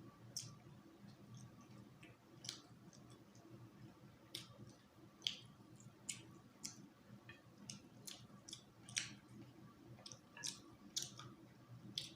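Close eating sounds of a person chewing fish and rice: about a dozen sharp, wet mouth clicks and smacks at irregular intervals over soft chewing.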